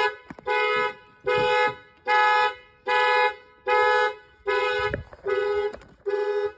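Car alarm going off, sounding the car's horn in even pulses: about eight loud blasts of a two-tone horn, each about half a second long, a little over one per second.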